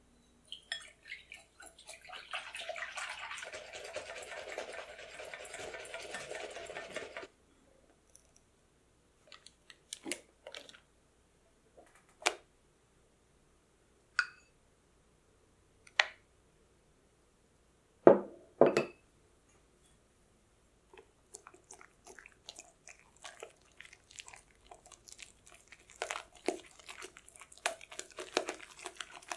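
A wire whisk beating cream fast in a glass bowl: a dense, rapid clatter for about seven seconds. A few separate sharp knocks follow, the loudest two close together about halfway through. After that come slower, uneven whisk strokes through thick whipped cream and custard.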